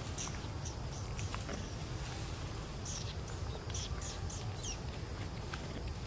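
Short, high bird chirps that slide downward, heard singly and in quick runs, over a steady low rumble.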